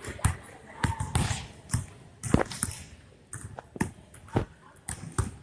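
A basketball bouncing on a court: a string of irregular thumps about every half second to a second, as it is dribbled and played.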